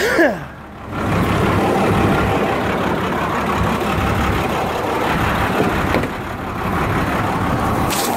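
Used tow truck's engine idling steadily, heard close up. A couple of sharp clicks near the end.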